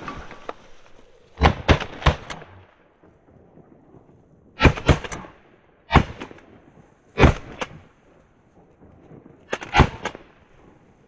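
Shotgun blasts at flying ducks: a quick burst of three shots about a second and a half in, then single shots more than a second apart, and a close pair near the end, each with a short echo.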